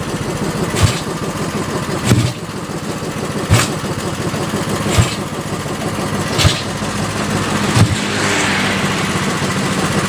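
Yamaha Vega ZR's four-stroke single bored to 200cc with a Mio cylinder, kick-started over and over with a sharp clack about every second and a half, the engine firing unevenly between kicks while its carburettor is still being set. About eight seconds in it runs a little louder and more evenly.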